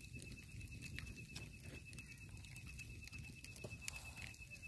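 Night outdoor ambience: a steady high-pitched insect trill over a constant low rushing background, with faint scattered clicks and crackles.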